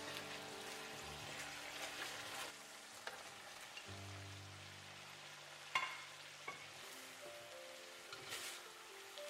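Sauce and fried eggplant pieces sizzling in a wok as they are stirred and turned with a spatula. A single sharp knock comes about six seconds in, under soft background music with held notes.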